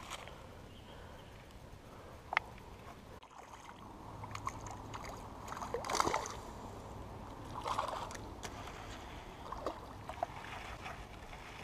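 Light splashing and sloshing of shallow pond water, in a few brief bursts, the biggest about six seconds in.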